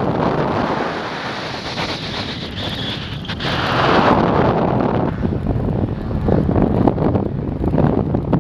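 Airflow rushing and buffeting over an action camera's microphone mounted on a hang glider wing in flight. It is a loud, gusting wind noise that dips slightly about a second in and swells again about halfway through.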